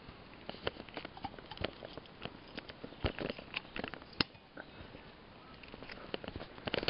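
Irregular clicks, taps and rustles of plastic solar garden light stakes being handled, with brushing through garden plants.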